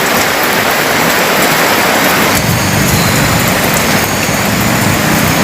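Steady rain hiss, close to the microphone, with a low rumble coming in a little before halfway.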